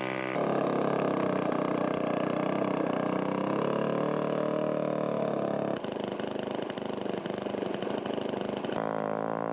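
Engine of a radio-controlled scale aerobatic model airplane running steadily with a buzzing drone, its pitch dipping slightly and recovering. The sound changes abruptly a few times.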